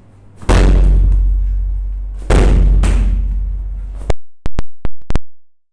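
Medicine ball slammed onto a rubber gym floor twice, about two seconds apart; each slam is a loud thud with a long fading boom. Near the end come a few short sharp clicks, then a moment of silence.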